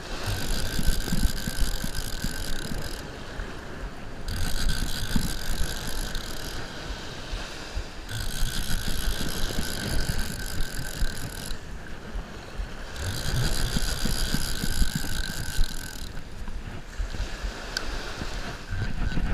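Conventional revolving-spool fishing reel being cranked in spells of two to three seconds with short pauses, its gears whirring as line is brought in against a hooked fish. Low wind rumble on the microphone and surf underneath.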